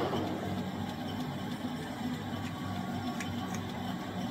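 Metal lathe spinning down after being switched off, leaving a low steady hum, with a few faint ticks near the end as the freshly turned bush is handled on its shaft.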